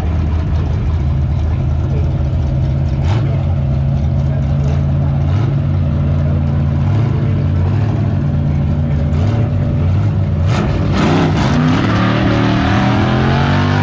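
Two drag cars, a Ford Falcon and a '40 Ford, running loud and steady at the starting line. Near the end the engines rev and their pitch climbs as they launch down the strip.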